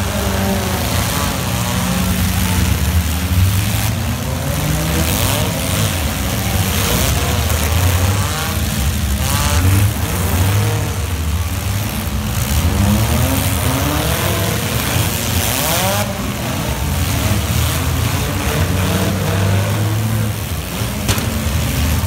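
Many demolition derby car engines revving hard together, their pitch rising and falling, with a few sharp bangs of cars hitting each other.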